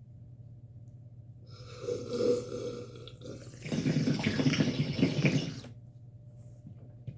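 Water bong bubbling as smoke is drawn through it: a short gurgle about two seconds in, then a longer, louder run of bubbling for about two seconds.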